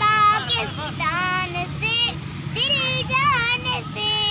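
A young boy singing a patriotic Urdu song solo in a high voice. He sings in short phrases of held, wavering notes with brief breaks between them.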